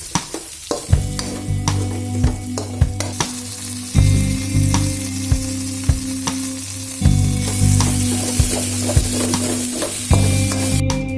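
Curry sizzling in a hot pan while being stirred, with repeated sharp clicks of the spoon against the pan.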